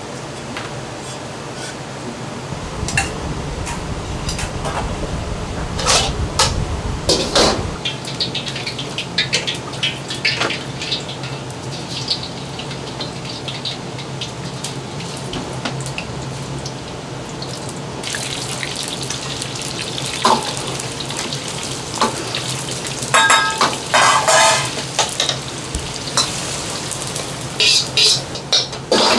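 Wok cooking at a restaurant range: a metal ladle clanks and scrapes against a wok over a steady low hum. A louder run of ringing clanks comes about two-thirds of the way through and again near the end.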